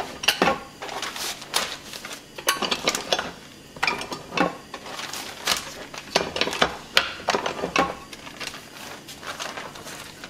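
Irregular knocks, clinks and plastic rustling from kitchen handling: a metal tortilla press being worked and a raw corn masa tortilla handled on its plastic sheet.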